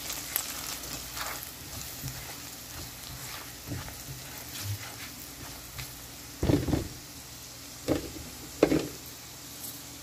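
Chopped onions and turmeric powder sizzling in hot oil in a pan while a spatula stirs them, with light clicks and scrapes of the spatula on the pan. Three louder knocks of the spatula against the pan come about six and a half, eight and eight and a half seconds in, the last the loudest.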